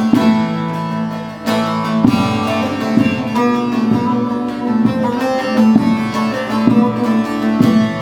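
Instrumental break of a Kurdish folk song: a plucked string instrument plays the melody over a steady beat, with no singing.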